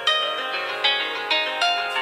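Built-in ringtone playing from a Nokia 3110 classic's speaker: a melody of plucked-sounding notes, each starting sharply and quickly fading, about two a second.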